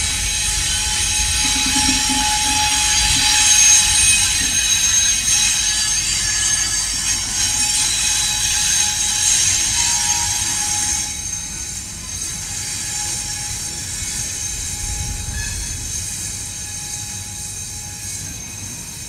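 Empty freight hopper cars rolling past on curving track. Their steel wheels squeal in several high steady tones over a low rumble for roughly the first half. About halfway through the squeal drops away, leaving a quieter rolling rumble.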